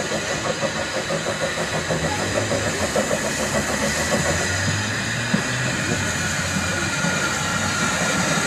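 Small saddle-tank steam locomotive approaching at low speed with steam up. Its exhaust chuffs in a quick, even rhythm for about the first four seconds, then fades into a steady hiss and low rumble, with one sharp knock about five seconds in.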